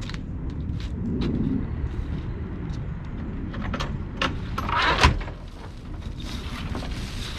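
Volvo EC60E mini excavator's diesel engine running steadily, with scattered metal clicks and knocks, and a louder scraping burst ending in a sharp knock about five seconds in.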